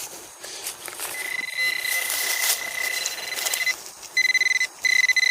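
Soil being scraped and dug, then from about a second in a steady high electronic tone from a metal detector sounding over a target. The tone breaks off just before four seconds and comes back as long beeps near the end.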